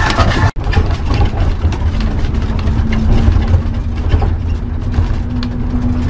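Motor home driving on a bumpy dirt road, heard from the cab: engine and road rumble with many short knocks and rattles from the unpaved surface. A steady engine hum sets in from about two seconds in. The sound cuts out for an instant about half a second in.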